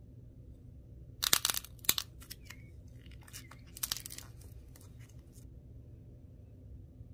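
A clay ball's hardened outer shell cracking and crunching as fingers squeeze it. A quick run of sharp crackles comes about a second in, then scattered single cracks, a second loud burst near four seconds, and a few last cracks.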